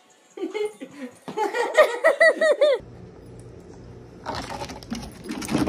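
A person laughing in quick high-pitched bursts, about five a second. The laughter stops suddenly and gives way to a low steady hum with scattered rustling noises, and a louder burst comes near the end.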